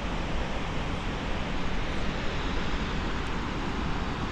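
Steady rushing of the Potomac River's falls and rapids below, an even noise with no breaks.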